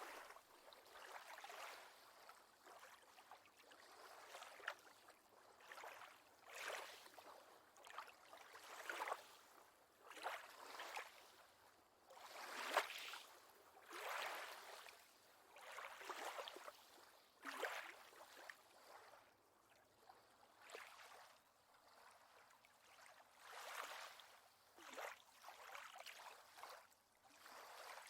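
Faint lake water lapping softly, in small irregular splashes every second or two.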